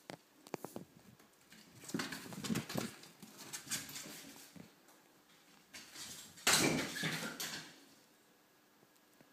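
A cat scrambling after a moth on a hard bathroom floor: irregular scuffles, taps and knocks, mixed with the rustle of a handheld phone. The loudest bump comes about six and a half seconds in.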